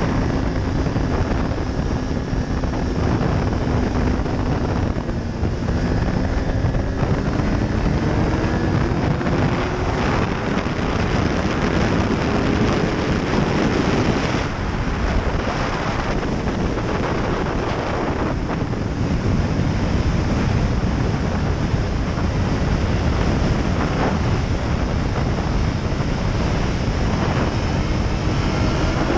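Heavy wind rushing over the camera's microphone at track speed, with the BMW S1000RR's inline-four engine running underneath. The engine's pitch climbs slowly through the first half and climbs again near the end as the bike accelerates.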